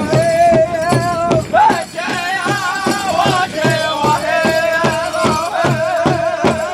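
Powwow drum group singing a grass dance song in high, wavering voices over a steady beat on a large powwow drum, about three strikes a second.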